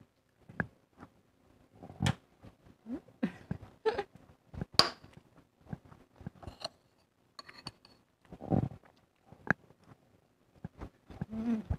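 Close-up eating sounds: chewing and mouth smacks, with a few sharp clinks of a metal spoon against a ceramic bowl.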